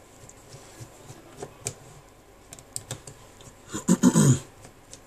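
Light plastic clicks and taps from a smartphone's open plastic housing and frame being handled and pressed by hands. About four seconds in there is a louder, rough burst lasting about half a second.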